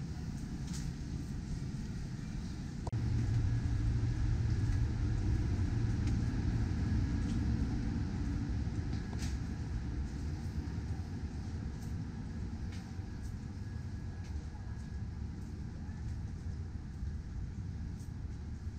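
Steady low rumble of city background noise. It grows louder about three seconds in and eases off slowly, with a few faint scattered clicks over it.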